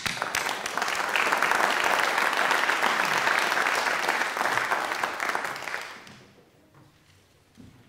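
A crowd of people applauding. The clapping holds steady for about five seconds, then dies away around six seconds in.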